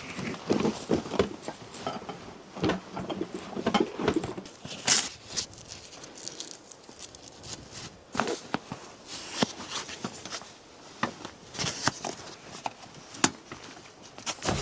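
Irregular light knocks, clicks and rustling, denser in the first few seconds and sparser, sharper clicks after.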